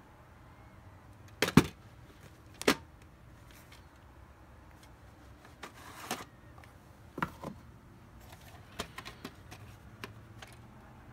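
A VHS cassette and its case being handled: sharp plastic clacks and knocks, the two loudest about a second and a half and nearly three seconds in. About six seconds in comes a short sliding rustle, then lighter clicks as the tape comes out of the case.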